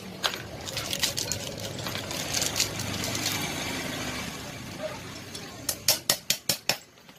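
A quick run of about six sharp metal-on-metal taps, some five a second, near the end: a tool striking a new bearing to seat it in its flanged rear axle housing. Before that, lighter clinks of metal parts being handled over a low steady hum.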